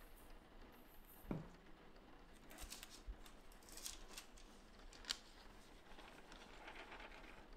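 Quiet handling of a sheet of screen-print transfer paper dusted with glue powder: faint paper crinkling and a few sharp ticks as the sheet is lifted, with a dull knock a little over a second in.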